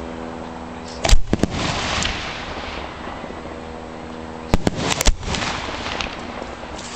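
Fireworks show of 4- to 6-inch aerial shells. Sharp booms come in two quick clusters: three about a second in, and four more around four and a half to five seconds in.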